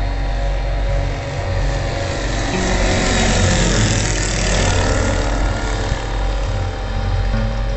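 Land Africa ultralight's engine and propeller passing by in flight, swelling to its loudest around the middle and fading again, with a sweeping whoosh as it goes past.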